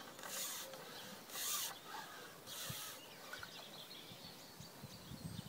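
Quiet outdoor ambience with faint distant birdsong, and three brief soft hissing swells in the first three seconds.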